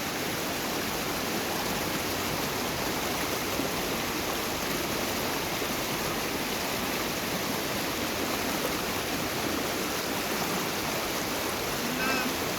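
Water of a small river flowing and rushing steadily.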